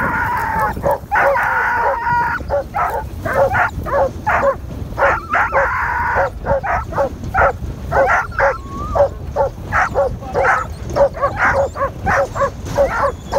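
Hunting dogs yelping and barking excitedly in quick succession, about two yelps a second, broken by a few long whining howls near the start and about halfway through.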